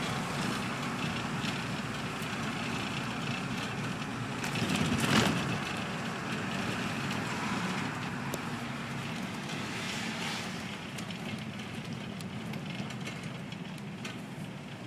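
Routemaster double-decker bus driving along a road, heard from inside: steady engine and road noise, with a brief louder swell about five seconds in, easing off slightly towards the end.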